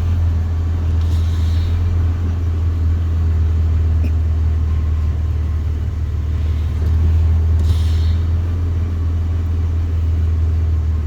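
Four-wheel-drive's engine idling steadily with a low hum, while the brake pedal is pressed with the newly fitted Bendix vacuum brake booster. Two brief faint hisses come about a second in and again near eight seconds.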